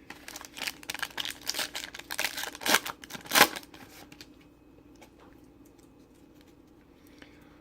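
Foil trading-card pack being torn open and crinkled, a burst of rustling and crackling for about three and a half seconds before it goes quiet.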